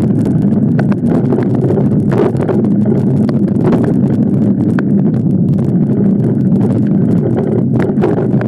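Wind buffeting the microphone while riding a mountain bike along a dirt trail, a loud steady rumble with many small rattles and clicks from the bike on the rough ground.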